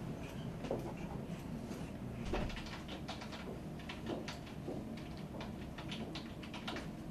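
Irregular clicks and taps of a computer keyboard being typed on, over a steady low room hum.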